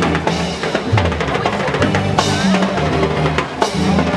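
Live Cuban salsa band playing a dance groove: timbales and congas striking steadily over electric bass and keyboards.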